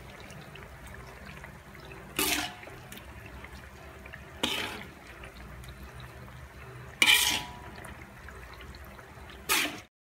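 Metal spoon scraping across a wok pan, scooping sautéed minced meat and vegetables into a bowl: four scrapes about two and a half seconds apart, each a sudden swish that fades within half a second. The sound cuts off just before the end.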